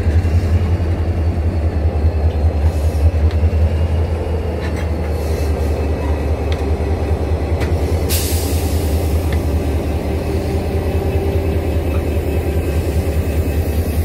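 Southern Shorthaul Railroad diesel locomotives, including CLF1, rolling past at close range: a steady low engine drone with wheels clicking over the rail now and then. A hiss starts suddenly about eight seconds in.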